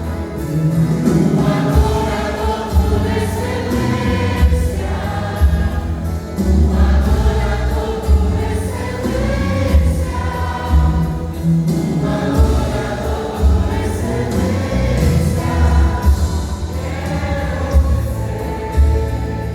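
Vocal group singing a gospel worship song in several voices over bass-heavy backing with a steady beat.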